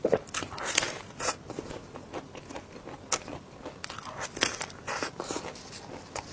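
Close-miked eating: biting and chewing with irregular crackling, clicking mouth sounds.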